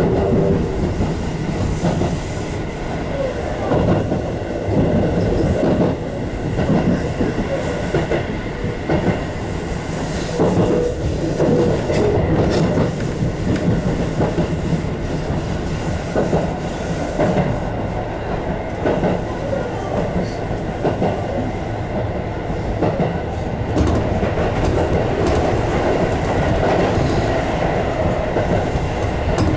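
Tobu Railway electric train running along the track, with steady running noise and repeated clicks of the wheels over the rails.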